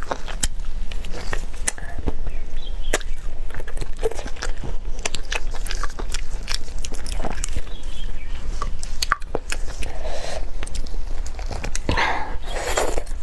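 Close-miked chewing of steamed chicken, with many sharp wet mouth clicks and smacks, while the meat is pulled apart by gloved hands. A louder, broader smacking sound comes near the end.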